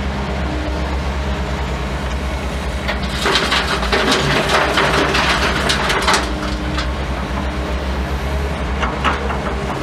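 Small Volvo excavator's diesel engine running steadily, heard from the cab. About three seconds in, broken concrete rattles and clatters out of the bucket into the dump truck's box for about three seconds, with a short clatter again near the end.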